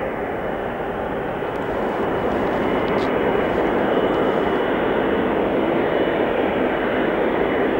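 Airbus A330-343 airliner's Rolls-Royce Trent 700 turbofan engines running as it rolls on the runway: a steady jet rumble with a thin high whine, growing louder about two seconds in.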